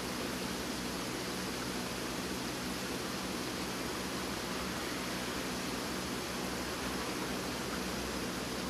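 Steady rush of running water in a koi tank, with a faint steady low hum underneath.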